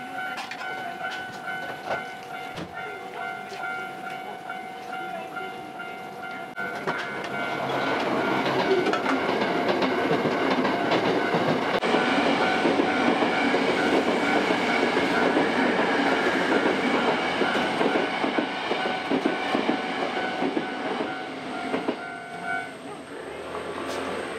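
Railway level-crossing warning bell ringing while a train passes, its wheels clattering over the rail joints. The train noise swells about seven seconds in and is the loudest sound, and the bell stops shortly before the end.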